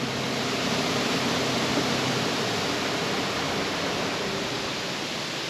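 Steady, even rushing noise with a faint low hum that fades out about two seconds in.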